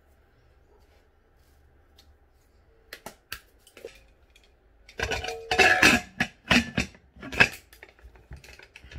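Pressure cooker lid being fitted and closed on the pot: a few light clicks, then about two and a half seconds of loud metal clanking and knocking as the lid goes on.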